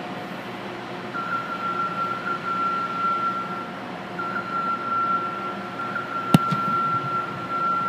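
A football kicker's foot striking the ball on a field goal kick: one sharp thud about six seconds in. A steady high-pitched tone, broken briefly partway, runs under it from about a second in.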